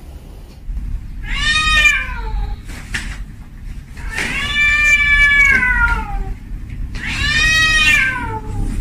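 A calico cat meowing three times in drawn-out calls, the middle one the longest. Each rises and then falls in pitch. Low rumbling background noise runs underneath.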